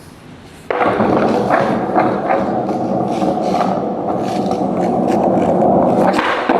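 Skateboard wheels rolling over wet pavement: a loud, steady, gritty rumble that starts suddenly about a second in and stops shortly before the end.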